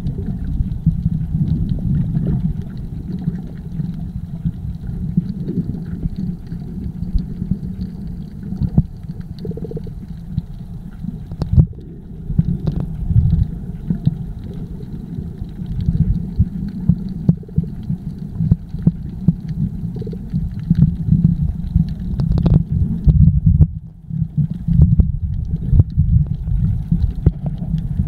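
Muffled, uneven low rumble of water moving around a camera filming underwater, with a few sharp knocks partway through.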